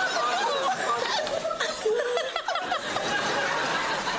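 Several people laughing at once, their giggles and chuckles overlapping.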